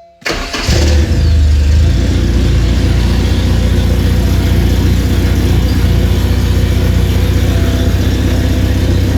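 Porsche 944's engine running loudly and steadily, coming in abruptly just after the start.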